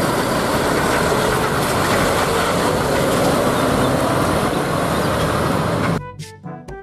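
MAN concrete mixer truck driving past, a steady diesel engine rumble with tyre noise. It cuts off about six seconds in.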